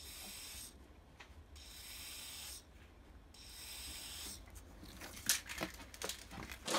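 Molotow aerosol spray paint can hissing in three short bursts, followed by a few sharp clicks and knocks near the end.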